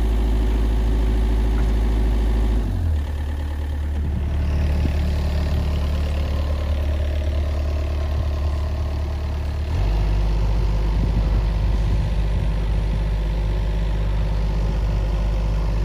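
Mini excavator's diesel engine running steadily with a low hum, which shifts higher about three seconds in and drops back near ten seconds.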